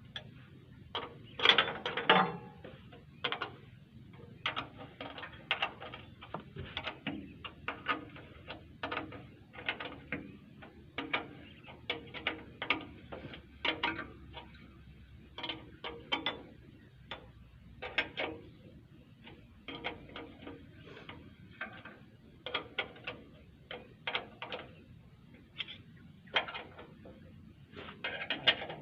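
Irregular sharp metallic clicks and knocks, one to three a second, the loudest cluster about one to two seconds in, as metal parts and tools are handled on an excavator during servicing, over a faint low hum.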